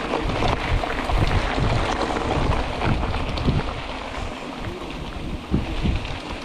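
Wind buffeting the microphone of a moving mountain bike, over a steady rush of tyre and trail noise with scattered small rattles and ticks.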